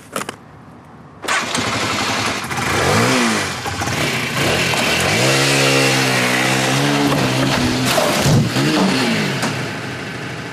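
Motorcycle engine catching about a second in, then revved hard, its pitch rising and falling several times with held, stepped tones as it pulls away.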